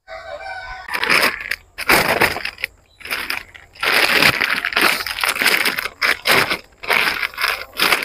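A rooster crows briefly at the start, followed by repeated loud bursts of harsh, rushing hiss-like noise, each lasting up to about two seconds.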